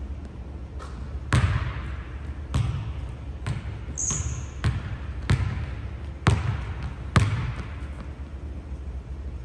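A basketball bouncing on a hardwood gym floor: about seven echoing bounces, irregularly about a second apart. There is a brief high sneaker squeak about four seconds in.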